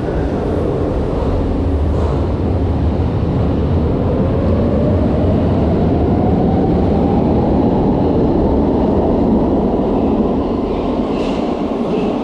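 Brussels Metro train pulling out of the station and picking up speed: steady wheel-on-rail noise with a whine that rises in pitch from the traction motors as it accelerates.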